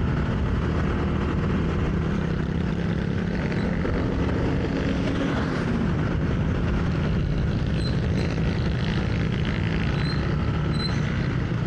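Motorcycle engine running steadily while riding, with wind and road noise on the microphone. The rider feels the rear brake dragging and the bike seems to struggle to pull forward.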